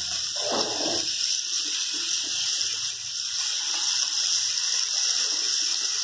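Pomfret pieces sizzling steadily as they shallow-fry in oil on a flat tawa, with a brief scrape of a spatula against the pan about half a second in.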